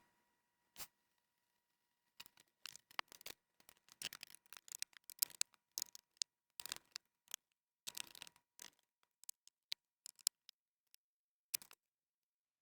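Faint, irregular light clicks and taps of small tools and screws being handled while a MacBook Pro laptop is opened up for repair.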